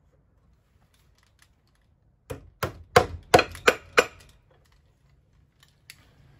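Hammer driving a nail through the small centre hole of a metal pressure plate into a wooden roof rafter: six quick strikes, about three a second, starting a couple of seconds in.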